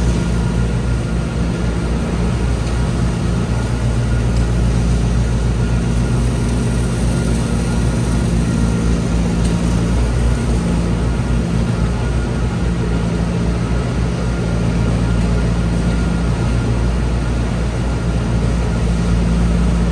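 Tractor engine running steadily while powering a Teagle straw blower, the machine's rotor and fan adding a constant rushing noise as it throws chopped straw out of its spout.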